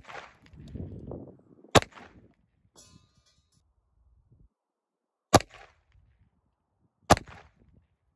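Crvena Zastava M70 pistol firing: a shot right at the start, then three more spread over the next seven seconds, the last two under two seconds apart, each followed by a short ringing echo.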